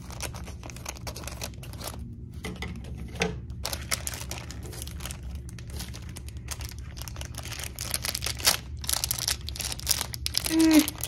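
Plastic blind-bag packet crinkling as it is cut with safety scissors and pulled open by hand: many small crackles, busier over the last few seconds.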